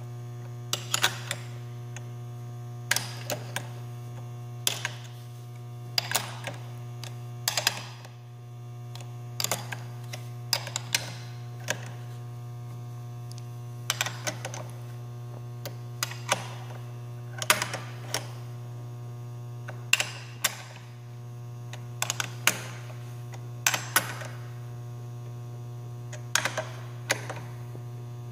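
Metal clicks and clinks of a steel wrench on hex bolt heads as the bolts are tightened, in small clusters every second or two, over a steady low hum.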